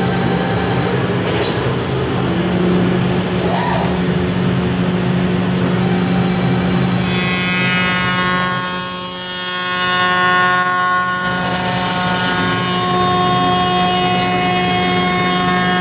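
CNC woodworking machining centre running, its spindle cutting wood: a steady machine drone with a few light clicks early on. About seven seconds in, a high whine with many steady tones joins it as a disc tool works the wood.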